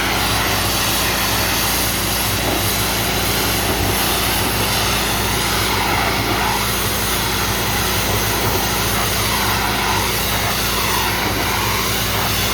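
Kohler gas engine of an Easy Kleen 4000 psi hot-water pressure washer running steadily under load, with the hiss of the high-pressure spray over it. The spray's tone sweeps up and down a few times in the second half.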